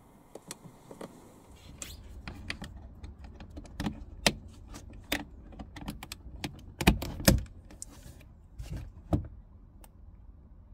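Irregular clicks and knocks of parts and tools being handled during car door repair work, with two louder knocks close together about seven seconds in, over a faint low rumble.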